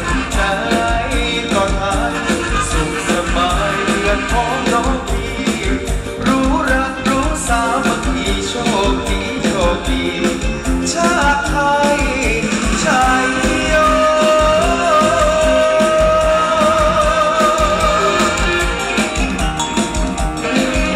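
Loud amplified live band music with a singer over a steady beat; after the middle, long held notes waver with vibrato.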